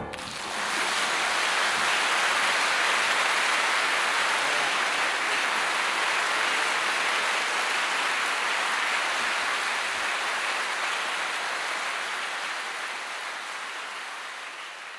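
Audience applauding, building up within the first second, holding steady, then fading away over the last few seconds.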